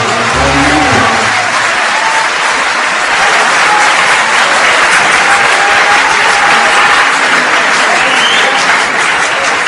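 Large concert audience applauding in a long, steady ovation. The orchestra's last note fades out within the first second.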